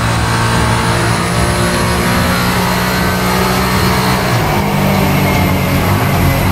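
Yamaha NMAX scooter's single-cylinder engine at full throttle on a chassis dyno, its pitch held nearly steady by the stock CVT while a thin high whine climbs with wheel speed. About four and a half seconds in the engine note changes and the whine falls away as the run winds down.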